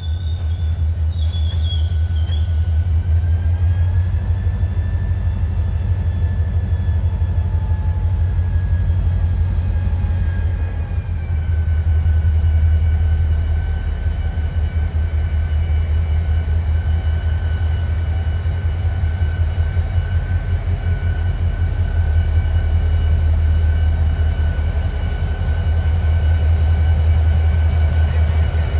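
Two Norfolk Southern diesel locomotives approaching at low speed, their engines giving a steady, heavy rumble. A faint high whine rides over it, rising about three seconds in and dropping to a lower steady pitch about eleven seconds in.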